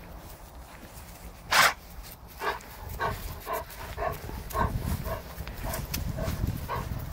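A dog barking: one loud bark about a second and a half in, then a run of shorter barks at about two a second.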